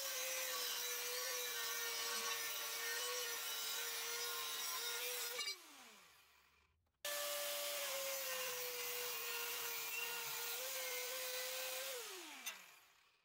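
Angle grinder with a cut-off disc cutting through steel bar in a vise, a steady high whine over the grinding that sags slightly under load. About five seconds in it is switched off and winds down with a falling whine; it starts again abruptly to cut a second piece, steel angle, and near the end winds down again.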